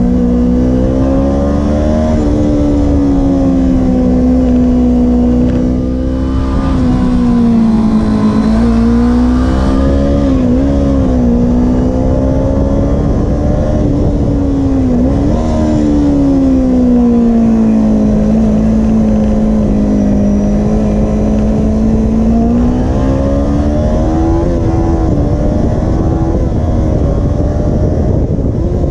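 Kawasaki Ninja 250R's parallel-twin engine heard from on board, its pitch rising and falling repeatedly as the rider accelerates, shifts up through the gears and eases off for corners.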